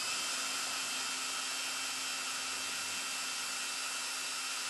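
Cordless drill-driver running at a steady speed, with a steady motor whine, turning the adjustment screw of a Blum AVENTOS HL lift mechanism.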